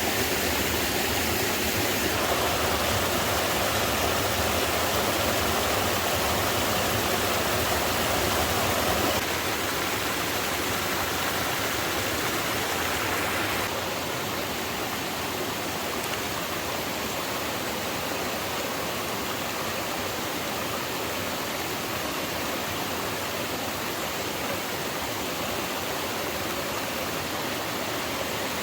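Steady rush of flowing stream water, changing abruptly in tone and level about two, nine and fourteen seconds in.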